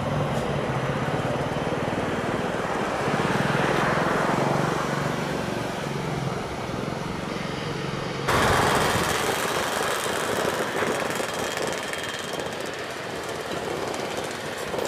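Jet engine noise from an Airbus A320-214 (CFM56 engines) rolling out on the runway after landing: a low steady rumble with a hiss. About eight seconds in it cuts sharply to the louder, steady jet noise of an Airbus A330-343 (Rolls-Royce Trent 700 engines) on final approach.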